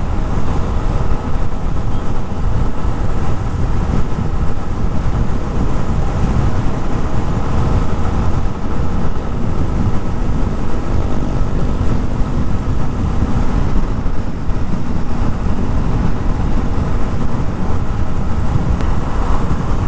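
Yamaha Sniper 150's single-cylinder four-stroke engine running at a steady, unhurried cruise under wind rushing over the rider's microphone. The new engine and tyres are still being broken in, so the bike is not pushed hard.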